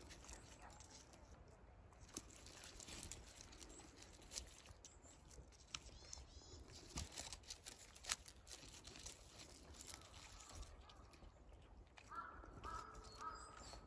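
Faint crisp clicks and tearing of a Shiba Inu biting and chewing sasa bamboo leaves. Near the end come three short high calls in quick succession.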